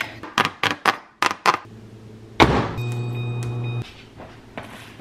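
A plastic meal tray handled with a few sharp clicks and knocks, then a microwave oven starting with a thunk and running with a steady hum for about a second and a half before it cuts off suddenly.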